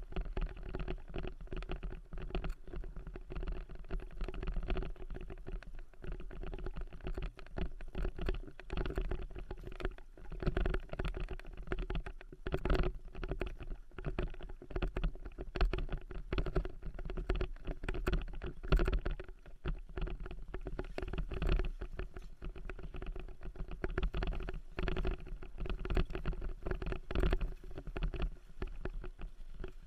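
Dryland mushing rig rolling fast over a rough dirt forest track, heard from a helmet camera: a continuous irregular rattle and clatter of wheels and frame over the bumps, over a low rumble and a steady faint hum.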